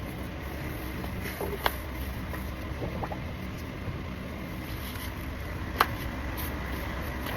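Electric fan running with a steady low hum, with a few light clicks and taps of handling; the sharpest click comes about six seconds in.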